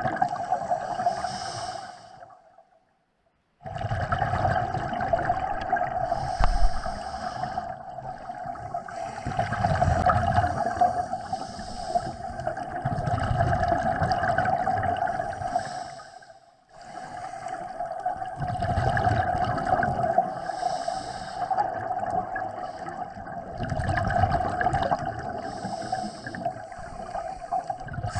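Scuba divers breathing through their regulators underwater: exhaled air bubbling out in gurgling swells every few seconds over a steady hiss. The sound cuts out almost completely twice, briefly.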